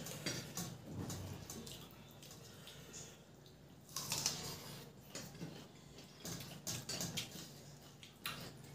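Close eating sounds: fingers squishing and mixing rice with curry on metal plates, with chewing and lip smacks, and scattered short clicks and clinks.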